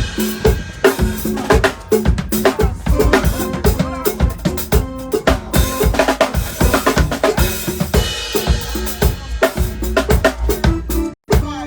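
Drum-heavy music with a steady beat and a bassline, played over a sound system during a sound check; it drops out for a moment near the end.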